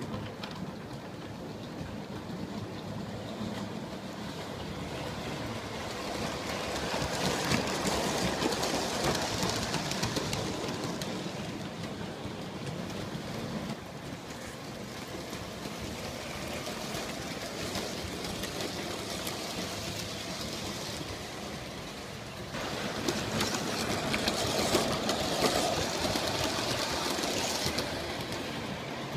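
G scale model train running around its track, a steady rumble of wheels and motor that grows louder twice as the train comes close.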